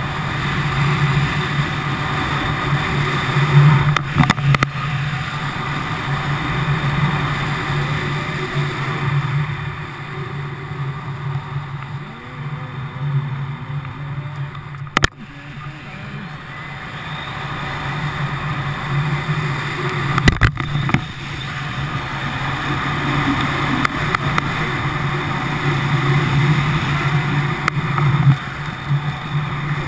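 Wind rushing over a pole-mounted GoPro's microphone in fast flight under a small speed wing, a loud steady rush that swells and eases. Two sharp clicks cut through it, about fifteen and about twenty seconds in.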